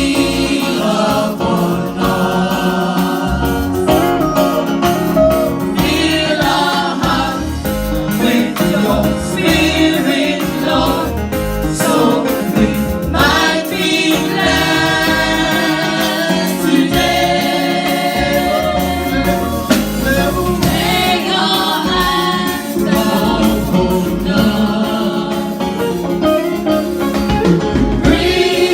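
A church choir and congregation singing a gospel hymn with instrumental accompaniment.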